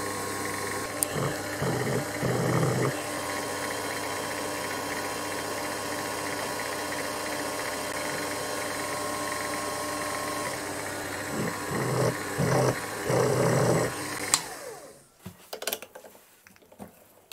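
Proxxon FF 230 mini milling machine running steadily with a spotting drill in the spindle, louder for two short spells as the drill cuts into the steel. About two-thirds of the way through it is switched off with a click and winds down, followed by a few light clicks of handling.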